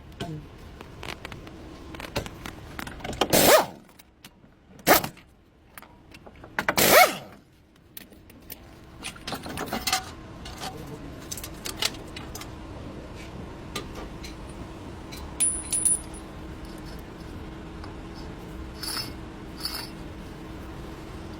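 Metal hand tools and parts clinking and clanking during work on a front wheel hub, with three louder knocks in the first third and lighter clicks after, over a faint steady hum.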